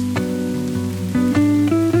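Soft jazz guitar music: a plucked melody of held notes changing a few times a second over a low bass line, with faint rain underneath.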